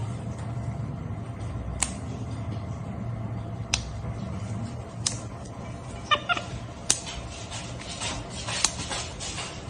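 A cat meowing, with a quick run of short falling calls about six seconds in. Several sharp clicks sound over a steady low hum.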